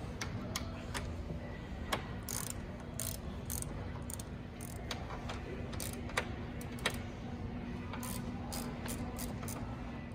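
Hand ratchet with a T50 Torx bit clicking irregularly as it turns out the door hinge pin bolts, with a few sharper clicks. A steady low hum runs underneath.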